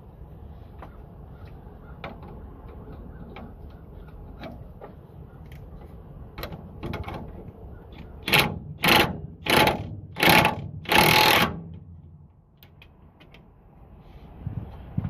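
Ratchet wrench working a nut onto a bolt in a truck's suspension: scattered small clicks, then five quick ratcheting strokes about eight seconds in, the last one the longest.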